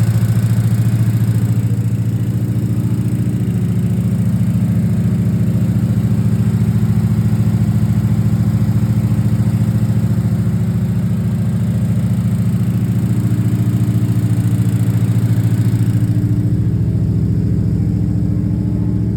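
Chevrolet 350 small-block V8 in a Camaro running steadily on its first start-up during cam break-in, with a little lifter noise.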